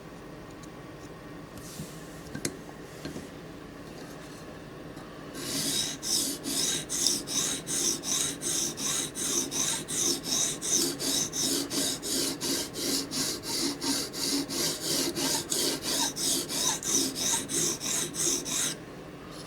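Steel blade of a Microtech Combat Troodon tanto OTF knife stroked back and forth across a sharpening stone: an even, rhythmic scraping of about three strokes a second. It starts some five seconds in and stops shortly before the end.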